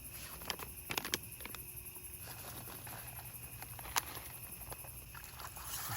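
Campfire crackling faintly: scattered sharp pops over a low steady hiss, with a louder pop about a second in and another near four seconds.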